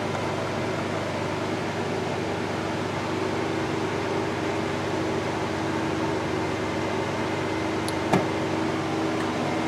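A steady electrical hum and fan-like hiss, with a single sharp click about eight seconds in as the battery backup's power plug is pushed into a wall outlet.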